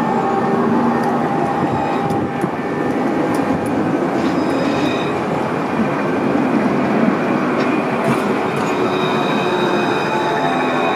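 Luas light-rail tram, an Alstom Citadis, passing close by on street-running track with a steady rumble of wheels and running gear. A thin high whine comes in about four seconds in and again near the end.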